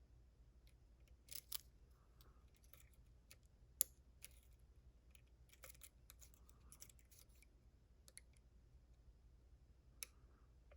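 Faint, scattered metallic clicks and scrapes of a lock pick and tension wrench working the pin stacks inside a Den Brass 'Kickass' challenge lock. The sharpest click comes about four seconds in.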